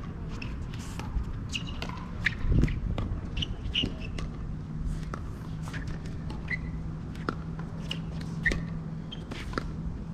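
Pickleball play on an outdoor hard court: scattered sharp pops of paddles striking the plastic ball and short squeaks of sneakers on the court surface. A low thump about two and a half seconds in is the loudest moment, over a faint steady hum.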